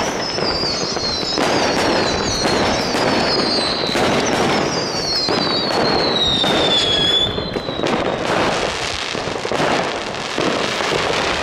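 Many fireworks going off at once: a dense, continuous crackle of bangs and pops. Over it, high whistles slowly fall in pitch during the first seven seconds or so.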